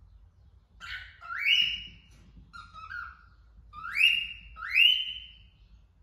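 Female cockatiel calling: a series of whistled calls, three of them loud, each sweeping sharply upward and then held briefly at a high pitch, with two softer, lower calls in between.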